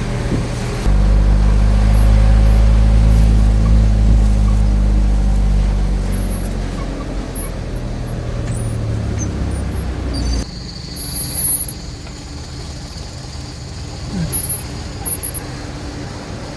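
Low, steady rumble of a vehicle engine heard from inside a car. It jumps louder about a second in and cuts off abruptly after about ten seconds, leaving a quieter hum with a faint high whine.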